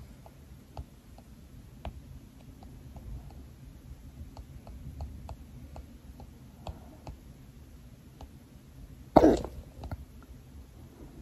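A person hiccups once, short and sharp, about nine seconds in, after a run of faint, irregular small clicks.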